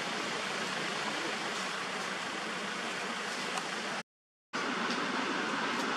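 Steady, even hiss of outdoor background noise. About four seconds in it drops to complete silence for about half a second, then resumes.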